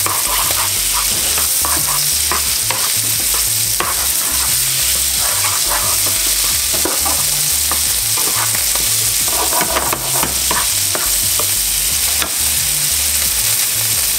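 Minced garlic sizzling steadily in melted margarine in a nonstick frying pan, stirred with a wooden spoon that scrapes and taps irregularly against the pan.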